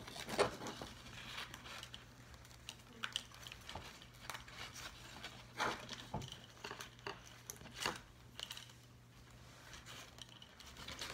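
Soft, irregular rustling and small clicks of ribbon and drinking straws being handled as ribbon is threaded through the straws, over a faint steady low hum.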